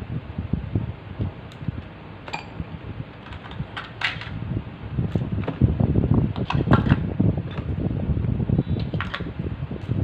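Plastic toy kitchen pieces being handled, with scattered light clicks and clatters over an uneven low rumble.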